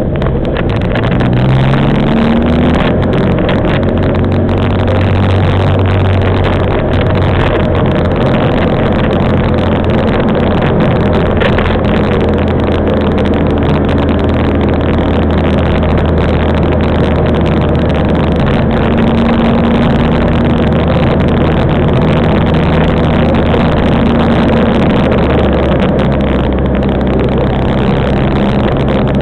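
Land Rover Defender's engine pulling steadily through flood water, over a continuous rush of churned water. The engine note rises in the first couple of seconds, then holds steady.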